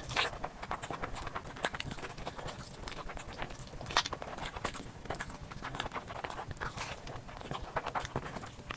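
Close-miked chewing and mouth sounds of a person eating: a dense, irregular run of wet clicks and crunches, several a second, the loudest about four seconds in.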